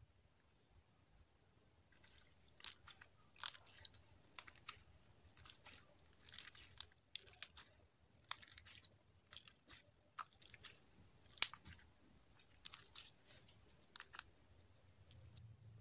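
Homemade clear-glue slime with crushed orbeez squeezed and kneaded by hand, giving irregular small wet crackles and pops. They start about two seconds in, and one sharp pop stands out about two thirds of the way through.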